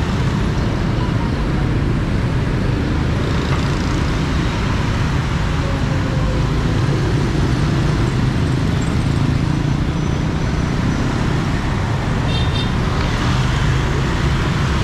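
Steady traffic noise of motorbikes and cars passing along a busy city street, with a brief high-pitched beeping near the end.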